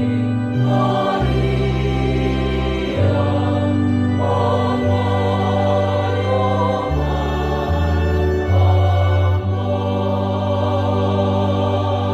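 Church choir singing in sustained chords over held bass notes that change every second or two.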